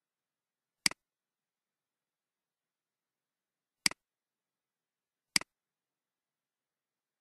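Three computer mouse clicks, well spaced: one about a second in, one near four seconds and one at about five and a half seconds. Each is a sharp click followed at once by a softer tick, the press and release of the button.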